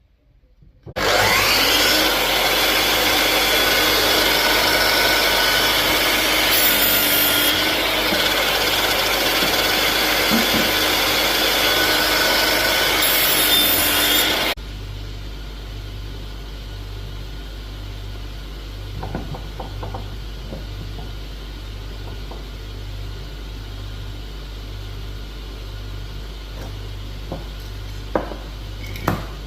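Power woodworking machine cutting wood: a loud, dense cutting noise over a steady machine tone for about thirteen seconds, which stops abruptly. A much quieter steady hum with a slow low throb follows, with a couple of knocks near the end.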